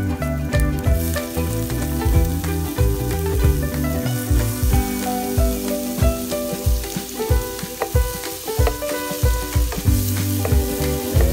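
Chopped vegetables and squid sizzling in hot oil in a frying pan, stirred with a wooden spatula, over background music with held notes and a bass line.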